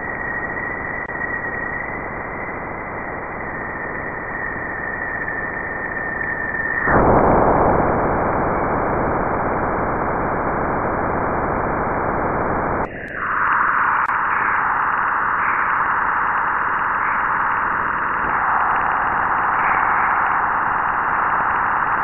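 Jupiter's electromagnetic emissions converted to audio: a steady rushing static hiss. A thin high whistle runs over it for the first seven seconds or so. Then the hiss gets louder, and about thirteen seconds in it dips briefly and turns thinner and higher-pitched.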